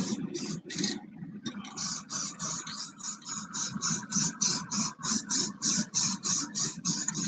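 Rust-Oleum 2X aerosol spray-paint can hissing in short, rapid bursts, about three a second, as paint is sprayed in quick pulses; the can is just about out. A steady hum runs underneath.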